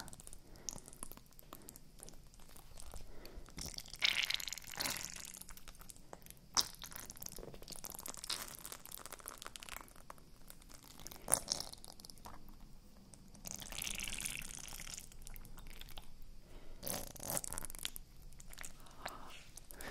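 Ice cubes crackling and popping in a silicone ice cube tray as it is bent and twisted, with fingernails tapping and scratching over the frozen cells. The crackling is irregular, with a few sharp cracks standing out.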